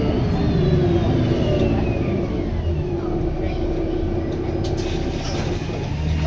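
Wright Gemini 2 double-decker bus on the VDL DB300 chassis heard on board: a low engine rumble under several high whines that fall slowly in pitch as the bus slows, with a steady hum joining a few seconds in.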